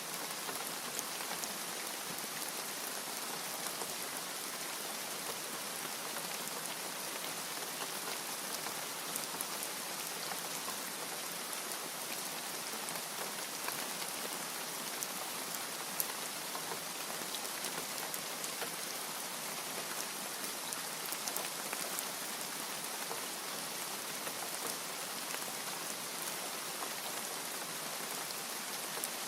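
Steady rain falling on a surface, an even hiss of many small drop ticks at a constant level.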